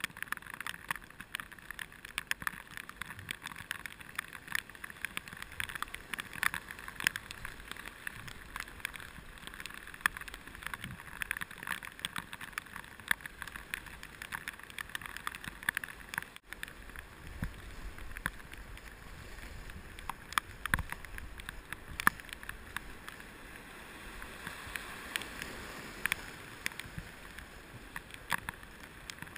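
Whitewater rapids rushing steadily past a canoe, with frequent sharp ticks and splashes of water close to the microphone.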